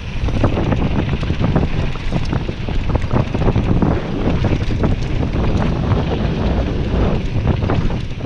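Wind buffeting the microphone of a mountain bike descending dirt singletrack at speed, over a constant rumble of tyres on the trail and many small rattles and clicks from the bike jolting over the rough ground.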